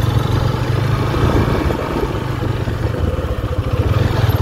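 Honda CB150F's single-cylinder four-stroke engine running steadily at low revs as the bike is ridden slowly over soft mud.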